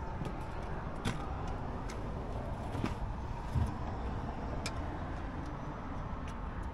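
A few sharp metallic clicks and one dull knock about halfway through, from hand work on a leaking hydraulic fitting on a military wrecker's boom, over a steady low rumble.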